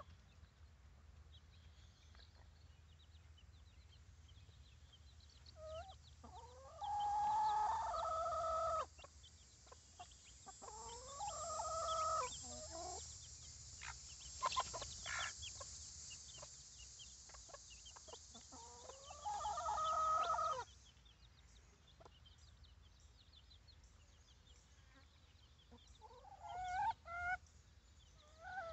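Chickens calling in a flock: three long, drawn-out calls of about two seconds each, with softer clucks between and a few short calls near the end.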